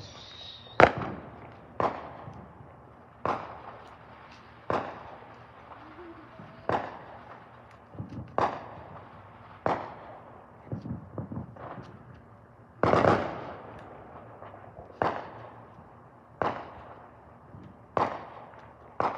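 Fireworks going off: about a dozen sharp bangs, one every second or two, each with an echoing tail. About eleven seconds in comes a quicker run of smaller crackling pops.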